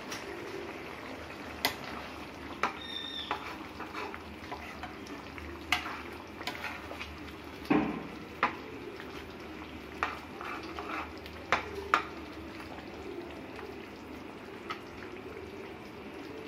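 Metal ladle stirring a thick, simmering tomato-based corn and capsicum gravy in a kadai: a steady bubbling with sharp clicks and knocks of the ladle against the pan every second or so.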